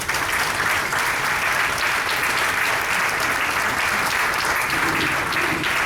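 A roomful of people applauding steadily, a dense patter of many hands clapping at once.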